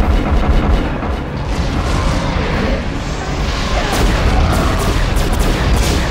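Science-fiction space battle sound effects: rapid weapons fire and booming explosions over a heavy low rumble, with a dramatic music score.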